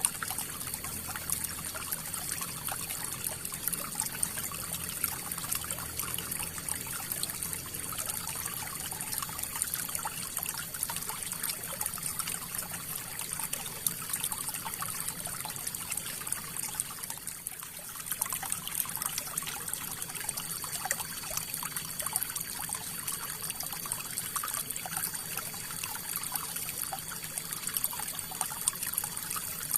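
River water flowing, a steady trickling and splashing.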